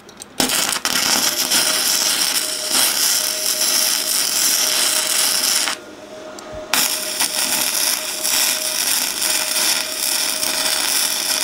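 Flux-core MIG welding arc from a Bestarc multiprocess welder, sizzling and crackling steadily as a bead is laid on steel, with a faint steady whine underneath. The arc stops for about a second partway through, then is struck again for a second pass.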